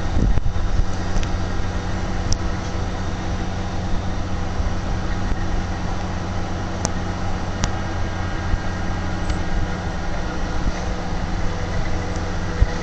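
Union MCR600 rotary snowplow motor car's engine running steadily with a low hum, and a brief low thump at the very start.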